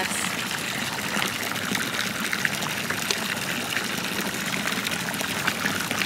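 Town fountain's spout running a steady stream of water into its stone basin, a continuous splashing.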